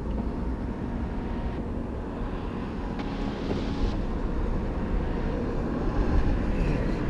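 Steady low rumble of vehicle engine noise, with a faint hiss that rises for a couple of seconds from about one and a half seconds in.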